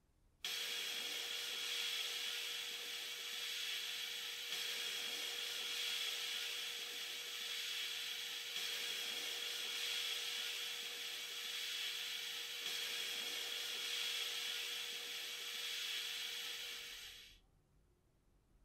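Sandblasting cabinet in use: a steady hiss of air and abrasive grit from the blast nozzle striking a small rusty metal fitting, stripping the rust. It starts abruptly and dies away shortly before the end.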